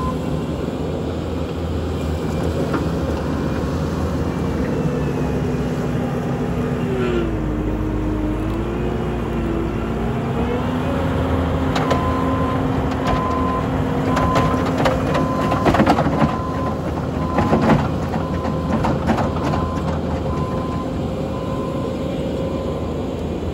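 Bobcat T770 compact track loader's diesel engine running steadily; its pitch dips about seven seconds in and comes back up a few seconds later. From about halfway through a repeated beep sounds, with several sharp knocks between.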